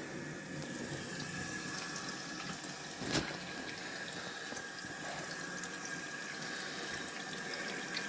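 Water running into a toilet cistern through the fill valve after the supply is turned back on: a steady hissing flow with a faint steady tone. A single click sounds about three seconds in.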